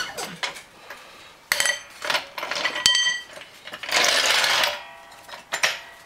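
Steel clanks and rattles from a hydraulic floor jack and its welded steel adapter being handled, several of them ringing briefly. About four seconds in, a short scraping rush comes as the jack is pulled across the concrete floor.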